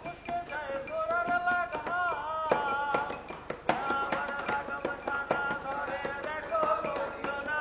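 A voice singing a melody over frequent sharp taps.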